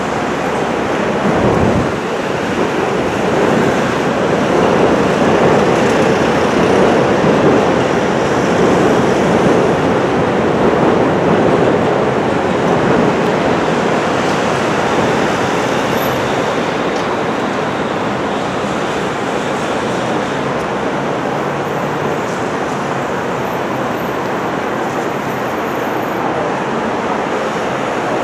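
A JR West KiHa 189 series diesel express train passing on elevated track, a steady rumble and rush of engines and wheels on rail. It is loudest from a few seconds in to about twelve seconds in, then eases slightly.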